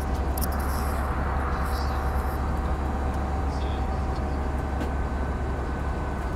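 Airbus A320 cabin noise in flight, heard inside the cabin: a steady deep rumble and rush of air with a couple of faint, steady whining tones.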